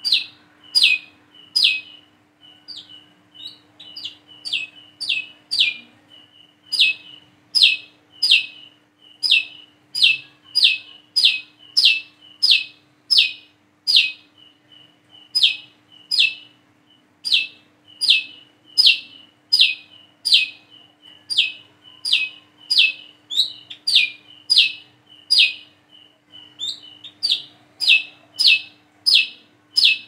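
A male brown-throated sunbird (kolibri kelapa) calling its sharp 'wiceh' note over and over, one to two calls a second. Each call drops quickly in pitch, and softer short chips come between the calls.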